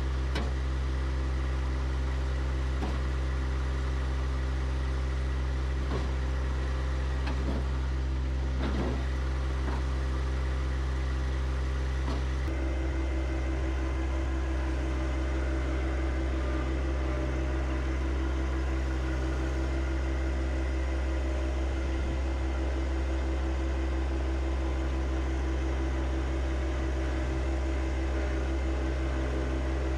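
John Deere 1025R compact tractor's three-cylinder diesel engine running steadily. Its note changes about twelve seconds in, when a steady droning tone joins it.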